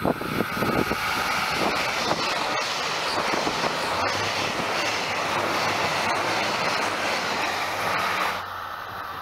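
Super Hokuto KiHa 261 diesel limited-express train passing through at speed: a loud, steady rush of wheels and engines with a few sharp clacks. Near the end the sound drops abruptly to the quieter sound of a train approaching.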